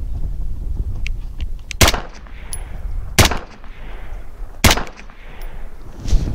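Four single rifle shots from a semi-automatic Fightlite SCR rifle with an AR-15 upper, fired about a second and a half apart, each a sharp crack with a short echoing tail.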